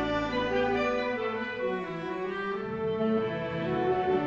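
Concert wind band of clarinets, flutes, saxophones and brass playing sustained chords. The deepest bass notes drop out about a second in, and lower parts come back in partway through.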